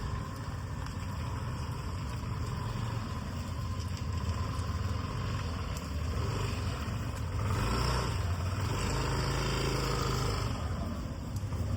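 Road vehicle engine rumble, growing louder about six seconds in and easing off near the end.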